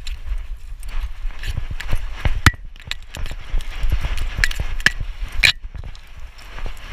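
Irregular knocks and thumps of a GoPro strapped to a moving dog's chest, its footfalls and the loose, swinging harness mount jolting the camera, over a low rumble. A few sharper clicks stand out, the loudest about two and a half seconds in and another near five and a half.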